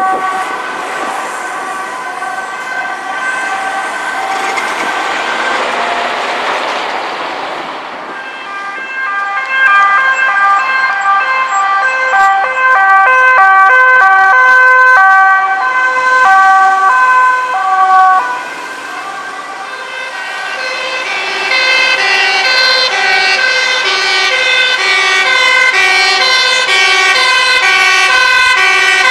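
Two-tone sirens of Dutch emergency vehicles driving with urgency, stepping back and forth between two pitches over passing traffic noise. From about two-thirds of the way in, sirens alternate faster and overlap, from more than one emergency vehicle sounding at once.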